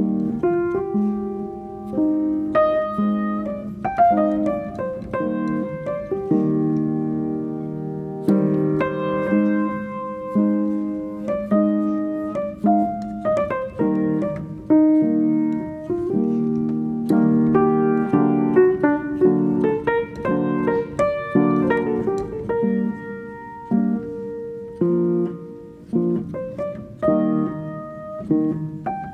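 Background piano music: a continuous melody of struck notes, each fading after it sounds.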